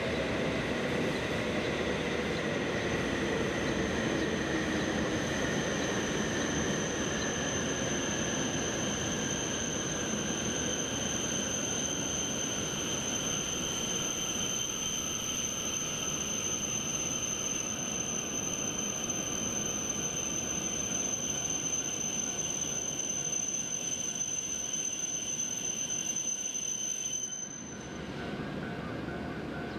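E7 series Shinkansen train running slowly past as it pulls into the station, a dense rolling rumble with a steady high-pitched squeal over it. The squeal and high tones cut off suddenly near the end, leaving a quieter background.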